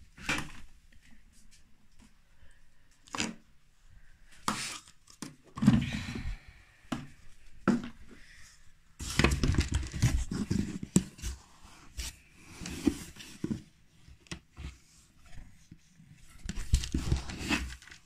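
Handling noises: scattered knocks and clicks, then longer bouts of rustling and scraping from a cardboard box of washing powder and a plastic scoop dug into the powder, the last bout near the end.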